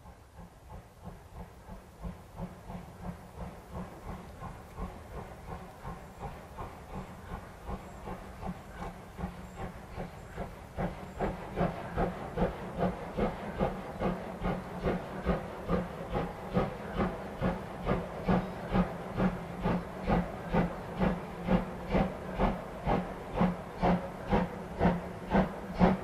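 Exhaust beats of two steam locomotives, DR class 41 2-8-2 no. 41 1144 and DR class 95 2-10-2 tank engine no. 95 1027, working a heavy gravel train at slow speed. A rhythmic chuffing of about two beats a second grows steadily louder as the engines approach.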